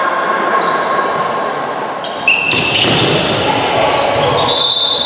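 Handball play in a large echoing sports hall: the ball bouncing on the court, shoes squeaking and players calling out. Near the end a referee's whistle blows a steady high note for about a second and a half.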